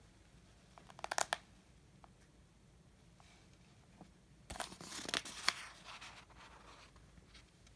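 Paper pages of a picture book being turned by hand: a short crackling rustle about a second in, then a longer rustling page turn with a few sharp crackles in the middle.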